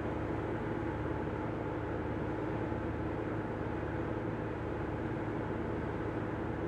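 A ferry's engines running steadily, heard from inside the ship: a constant low hum with a few steady tones.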